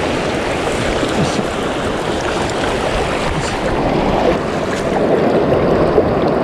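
Steady rushing of a shallow river's current.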